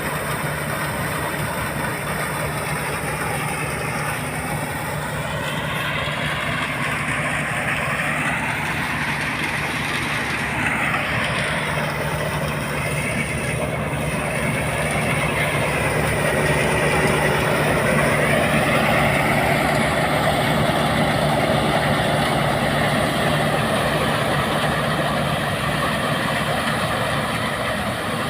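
Greengold combine harvester running steadily, its engine hum under the dense noise of its working machinery. It grows somewhat louder a little past the middle.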